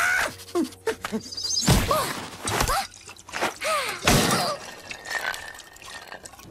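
Cartoon sound effects: a quick string of knocks and crashes, the loudest about two and four seconds in, mixed with short rising-and-falling squeaky character cries.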